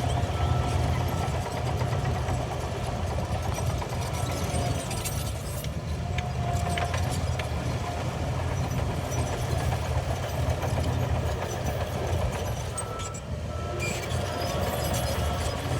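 Shantui DH17C3 bulldozer's diesel engine running steadily, a continuous low rumble, with short high-pitched tones that come and go.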